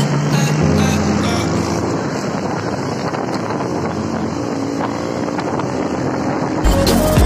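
Motorcycle engines running at road speed, with wind noise on the microphone of a moving bike. Near the end, music with a heavy bass beat cuts in suddenly.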